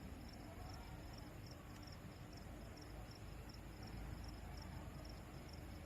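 Faint insect chirping: a high chirp repeating evenly a few times a second, over a low rumble.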